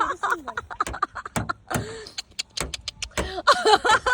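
A rapid run of short, pitch-bending chirps and squeaks mixed with sharp clicks, made by a voice, with a pause about two seconds in.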